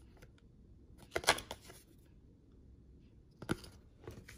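Basketball trading cards being handled: a short papery rustle and snap about a second in, then two lighter clicks near the end.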